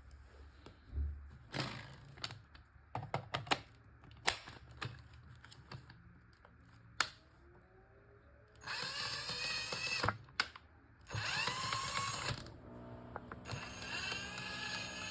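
Clicks and knocks of a tool being handled, then a RYOBI drain auger's motor run in three bursts, each starting with a rising whine as it spins up.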